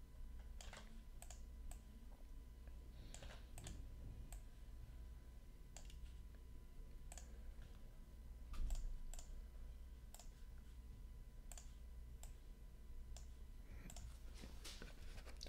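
Faint, scattered clicks of a computer mouse and keyboard, coming irregularly about once or twice a second, over a steady low room hum.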